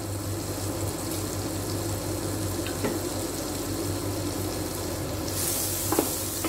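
Butter melting and sizzling in a hot nonstick kadhai. About five seconds in a spatula starts pushing the butter around and the sizzle gets louder, with a couple of light taps against the pan.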